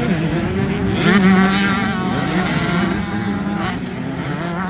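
125cc two-stroke motocross bikes revving through a dirt corner, several engines rising and falling in pitch over one another, loudest about a second in as a bike passes close by.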